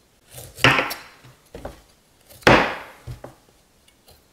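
Chef's knife cutting the skin off a celeriac root on a wooden board: two long slicing strokes about two seconds apart, each followed by a lighter knock.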